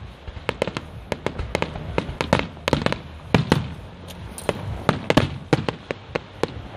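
Aerial fireworks shells bursting: a rapid, irregular series of sharp bangs, about two or three a second.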